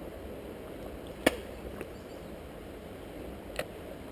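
Two sharp clicks over a steady low hiss: a loud one about a second in and a softer one near the end, with a faint tick between them.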